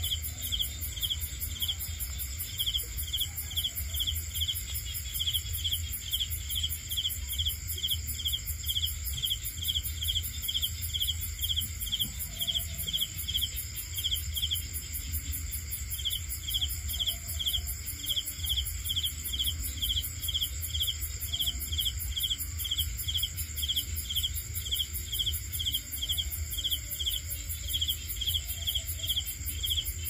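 Cricket chirping in a steady rhythm of about two to three chirps a second, pausing briefly about halfway through, over a steady high whine and a low hum.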